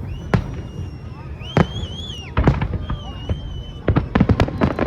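Fireworks going off: sharp bangs at irregular intervals, with high wavering whistles in the middle and a quick run of crackling bangs near the end.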